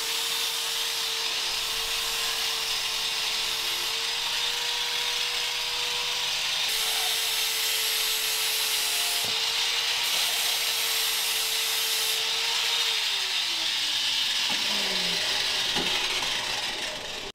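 A small electric power-tool motor runs at a steady high pitch, then is switched off about thirteen seconds in and winds down, its whine falling away over two to three seconds.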